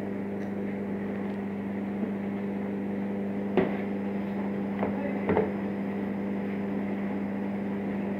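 Steady low electric hum of running laundromat machines, with a few short knocks about halfway through.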